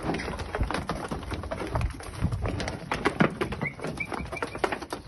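Hooves of young heifer calves clattering irregularly on concrete as they walk and jostle, with a few faint high bird chirps a little before the end.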